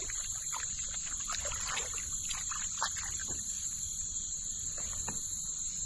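A steady, high-pitched drone of insects with scattered short chirps, over the light splashing of a hand rinsing in river water beside a kayak.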